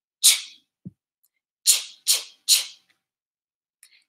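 A woman's voice saying the phonics sound "ch" as short, breathy, unvoiced bursts: once near the start, then three times in quick succession about a second and a half later.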